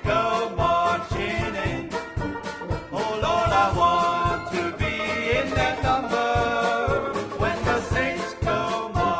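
Dixieland jazz band playing: brass horns such as trombone and trumpet carry the melody over a steady beat.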